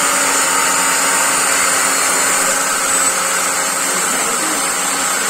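Interskol angle grinder cutting metal with an abrasive cut-off disc: a steady motor whine under a harsh grinding hiss. The level drops slightly about three seconds in.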